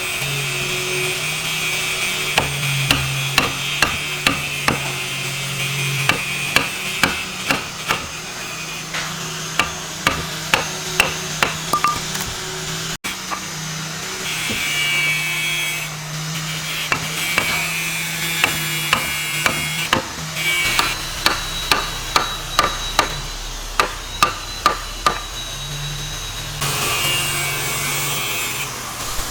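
Repeated sharp hammer strikes, roughly one to two a second, with short pauses, over a steady background hum.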